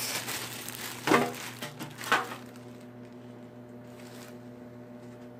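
A few knocks and clatters in the first two seconds or so: a plate being taken out of a wooden kitchen cupboard. Under them and after them is a steady low hum from the running microwave.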